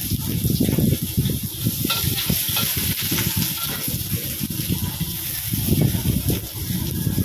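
Sliced shallots frying in hot oil in a wok, a steady sizzle with irregular scrapes and knocks of cooking at the pan.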